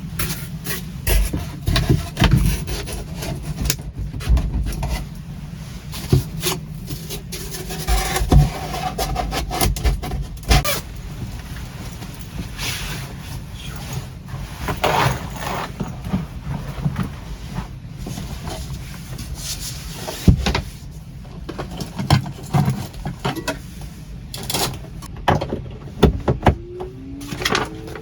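Repeated knocks and clatter of cooking gear being handled, over a low steady rumble.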